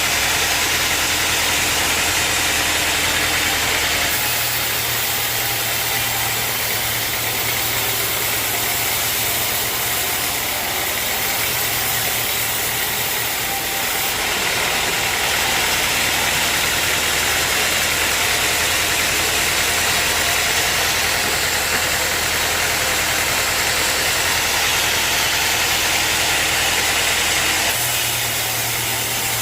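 Sawmill machinery running steadily: a loud machine drone under a dense hiss of a saw working through wood. The low drone shifts about four seconds in and again near the end.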